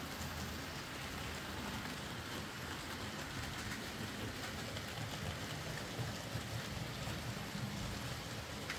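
OO gauge Bachmann Ivatt 2MT 2-6-2 tank locomotive running on its new axles and gears, hauling a train of goods wagons: a steady rattle of wheels on the track with small clicks now and then. It is running okay after the repair.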